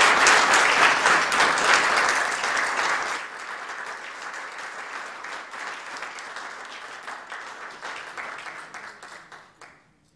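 Audience applauding: loud for about three seconds, then quieter, dying away just before the end.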